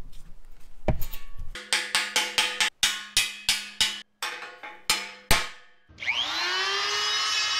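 A quick run of sharp, ringing struck notes, then, about six seconds in, a corded electric die grinder with a grinding stone switched on: its whine rises quickly in pitch and then holds steady at full speed.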